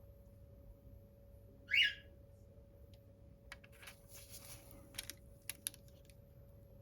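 A short, high, rising squeak-like chirp about two seconds in, the loudest sound here. After it comes faint crinkling and a few light clicks as transfer foil is handled and pressed onto a gel nail.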